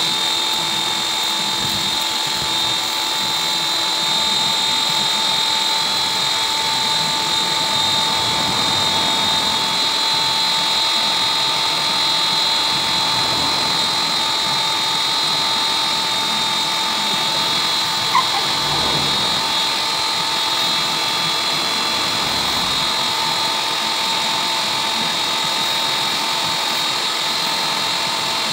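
Electric pressure washer running without a break: a steady whine from its motor and pump over the hiss of the water jet.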